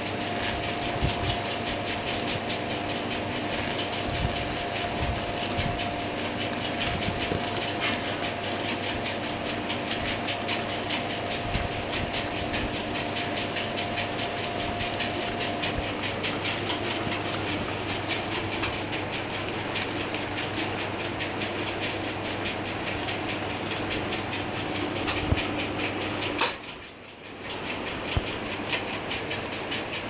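Rolling-shutter tubular motor and its gearbox running steadily, with a steady hum and a fine mechanical rattle. About 26 seconds in there is a sharp click, the hum stops, and a quieter rattle goes on.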